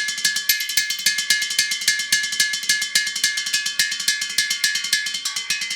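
Empty steel gas cylinder struck with drumsticks in a fast, steady run of metallic ringing hits. Near the end the ring changes to a lower set of tones.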